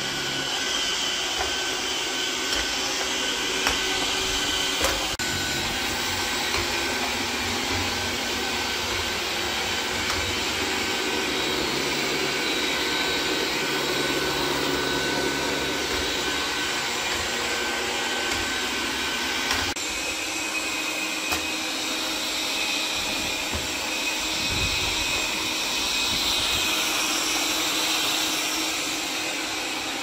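Xiaomi Robot Vacuum S10 running: a steady fan whir and hiss with a few whining tones. The sound changes abruptly twice, about 5 and 20 seconds in, as the suction mode steps up from Standard through Strong to Turbo.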